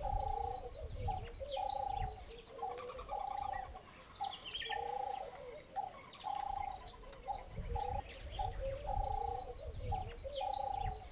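Doves cooing over and over in a repeating phrase of one longer note and several short ones, with a steady high, pulsing trill running behind them.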